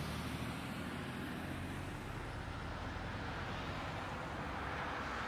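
Car engine idling, a low steady hum under an even background noise, picked up by a dashcam microphone inside a stationary car. The low hum fades about two seconds in.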